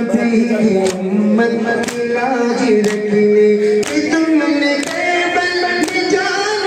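A male voice singing a nauha, a Muharram lament, in a slow held melody. It is kept in time by sharp slaps about once a second from the mourners' matam (chest-beating).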